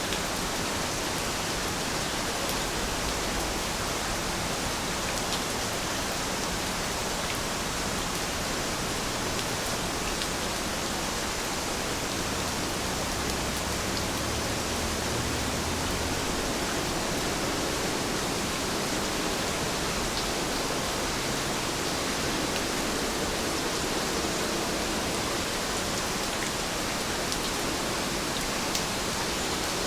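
Heavy rain falling steadily, a dense even hiss with faint scattered drop ticks.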